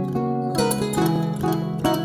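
Malian music: an instrumental passage of fast plucked strings, kora and ngoni, over a held low bass line.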